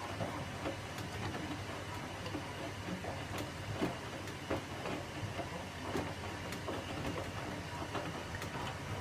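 Hotpoint WMAO863 washing machine running, a steady motor and drum hum with irregular knocks and rattles.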